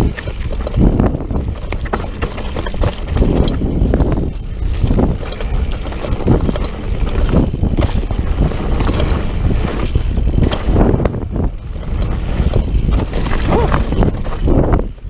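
Mountain bike descending a rocky dirt singletrack: tyres rolling over dirt and stones, with the bike rattling and clunking irregularly over bumps. Wind buffets the camera microphone.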